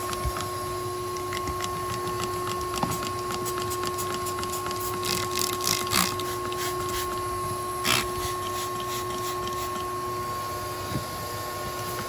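Shop vac motor running steadily with a constant whine, blowing air back through the exhaust of a 2.5L four-cylinder Jeep. Small crackles run throughout, and there are louder hissy bursts a little after five seconds and near eight seconds. The air is escaping at the exhaust manifold, which the owner takes for a leaking manifold gasket where a bolt is missing.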